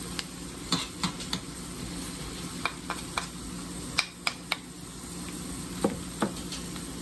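Sea robin roe frying with onions and herbs in an uncovered pan: a steady sizzle with scattered sharp pops and clicks.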